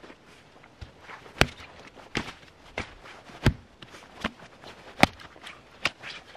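Hatchet splitting a log on a wooden chopping block: a run of about seven sharp knocks, roughly one every three-quarters of a second, the loudest a little past the middle.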